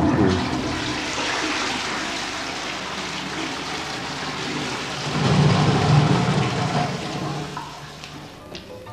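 Toilet flushing: a rush of water that swells to its loudest about five seconds in, then dies away near the end.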